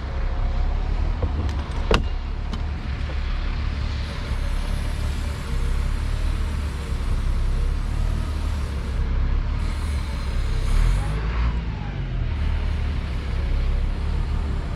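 A vehicle engine running with a steady low rumble, its pitch wavering slowly, with a sharp click about two seconds in.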